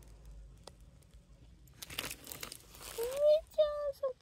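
About a second of rustling and crinkling, then a person humming a sing-song tune in short held notes.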